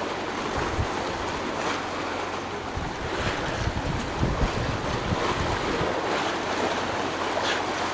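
Wind buffeting the microphone in uneven low gusts, over a steady rush of choppy sea water.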